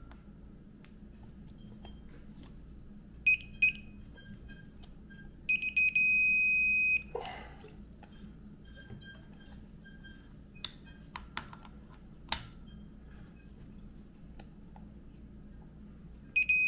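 Digital torque wrench beeping as a cam sprocket bolt is tightened to 12 newton metres: two short beeps a little over three seconds in, then a long steady beep about five and a half seconds in that signals the set torque has been reached. Fainter short beeps and a few sharp metal clicks follow.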